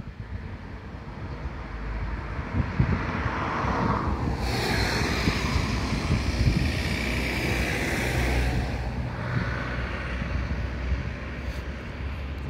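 A tram running past on the tramway: its running noise builds about two seconds in, is loudest with a high steel-wheel hiss from about four to nine seconds, then fades.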